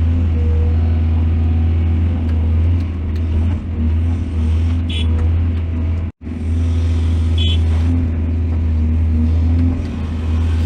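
Heavy diesel engine of an excavator running steadily with a deep rumble, briefly cutting out for a fraction of a second a little past halfway. Two faint short high squeaks sound over it.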